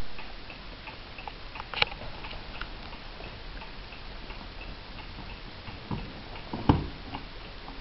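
Gustav Becker Napoleon-hat mantel clock ticking quickly and evenly. A sharp click about two seconds in and a louder knock near the end come from a hand handling the clock case.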